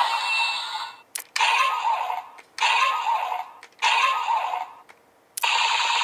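DX ValenBuster toy blaster playing its electronic shooting sound effect through its built-in speaker. Sudden shot sounds come about once a second, each fading out, then continuous rapid-fire starts shortly before the end as the trigger is held down.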